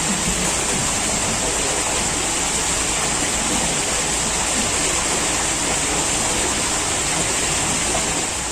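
Steady rushing noise with a bright, even hiss high up; nothing stands out against it.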